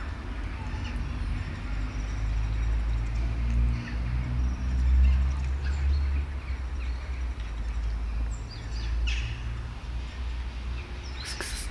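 Low outdoor rumble that swells and fades, loudest around the middle, with faint bird chirps over it. A few sharp clicks come near the end.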